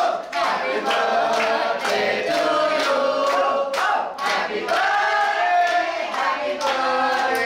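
A group of party guests singing a birthday song together, clapping in time.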